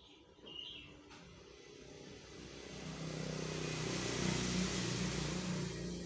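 A motor vehicle passing by: its engine grows louder from about two seconds in and is loudest near the end. A brief lovebird chirp comes about half a second in.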